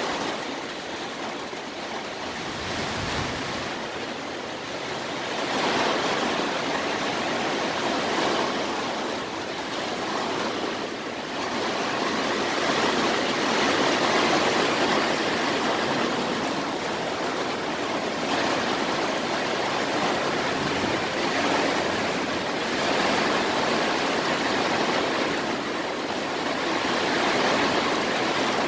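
Heavy thunderstorm rain pouring down steadily, swelling and easing in intensity every few seconds.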